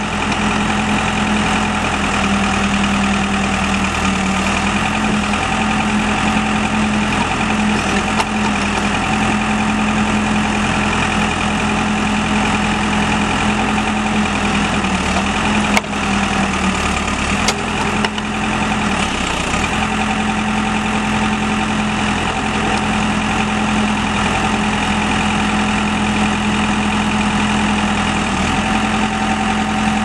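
The four-cylinder diesel engine of a 2003 Case 590 Super M backhoe idling steadily, with two brief clicks about halfway through.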